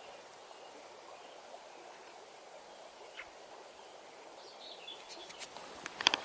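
Steady rush of river water, with a bird chirping faintly now and then. Near the end, a quick run of sharp clicks and knocks.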